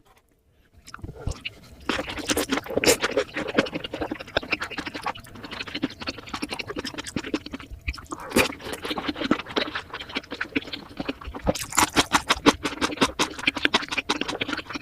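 Close-miked chewing of a large mouthful of salmon sushi: dense, wet mouth and smacking sounds that start about a second in.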